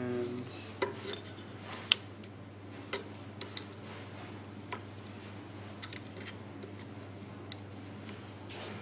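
Scattered light metallic clicks and ticks of a screwdriver and small screws being worked out of a coffee grinder's flat-burr carrier, the sharpest about two seconds in, over a steady low hum.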